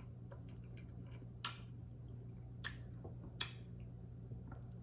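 Wet mouth clicks and smacks from eating okra soup with cornmeal fufu: three sharper clicks about a second apart from a second and a half in, with fainter ones between, over a low steady hum.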